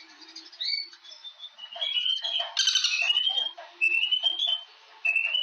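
Birds calling: a series of short, rising whistled notes, several overlapping, busiest in the middle.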